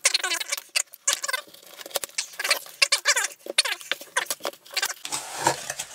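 Cardboard shipping box being torn open by hand: a quick run of short squeaky rips as the packing tape and cardboard flaps are pulled apart, turning to lower rustling of the packing near the end.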